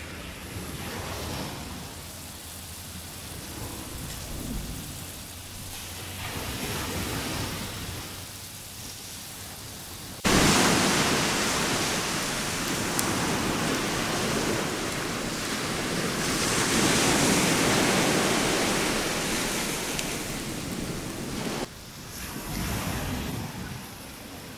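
Steady rushing of ocean surf on a beach, swelling and easing. A louder stretch of the same rushing starts and stops abruptly, about ten seconds in and about three seconds before the end.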